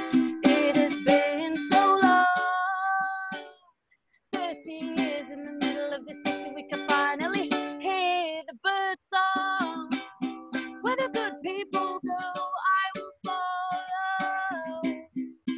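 A woman singing to her own strummed ukulele, with long held notes; both stop briefly about four seconds in, then carry on.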